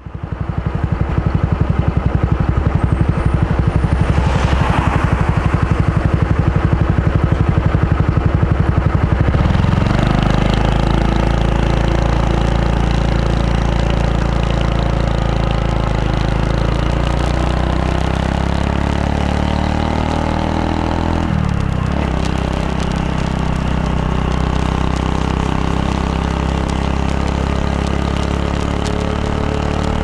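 Honda Super Cub 110's single-cylinder four-stroke engine, fitted with a Kitaco classic down muffler, picked up by a clip-on mic at the rider's waist. It idles with a steady fast putter for about nine seconds, then pulls away and rises in pitch as the bike accelerates. About two-thirds of the way through there is a brief break, after which it runs on steadily at riding speed.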